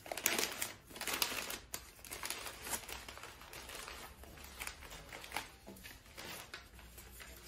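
Sheets of flower-wrapping paper crinkling and rustling as they are folded and pressed around a bouquet. The rustling is busier and louder in the first couple of seconds, then lighter.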